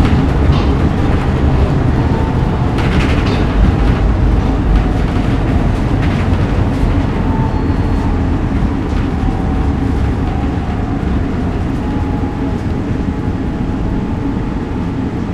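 Inside a SEPTA M4 rapid-transit car in motion: a steady heavy rumble of wheels on rail and running gear, with a faint whine in the middle, growing gradually quieter as the train slows for a station stop.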